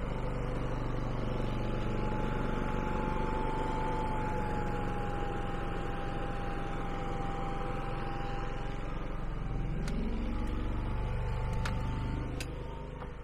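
Genmax 9000 inverter generator running steadily under the house's load: a low engine drone with a steady high whine over it. Its sound shifts a little around ten seconds in, with a few faint clicks, and eases off in level near the end.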